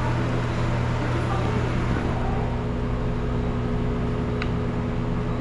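A steady low mechanical hum, with a second, higher steady tone joining about halfway through.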